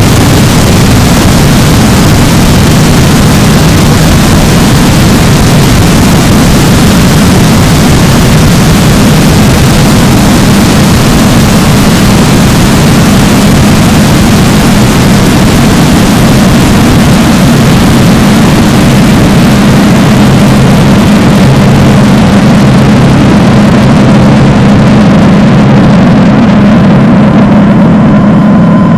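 Simulated nuclear explosion: a loud, continuous low rumble with heavy hiss over it, the hiss fading away over the last several seconds.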